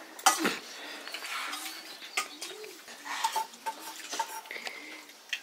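Spoons clinking against plates and bowls in short, sharp clicks during a noodle meal, with a dove cooing over and over in the background.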